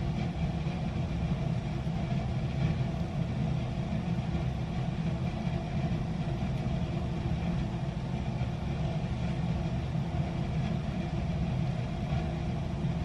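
A steady low mechanical hum at a constant pitch, like a running motor.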